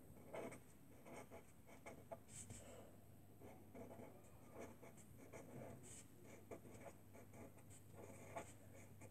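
Pencil writing on paper: faint, irregular scratches and small taps from the pencil strokes.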